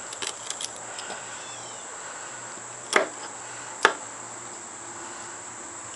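Two sharp knocks about a second apart, about three seconds in, as a glowing coal is dug out of a smouldering tinder fungus (Fomes fomentarius) hand-drill fireboard, with a steady high-pitched whine underneath.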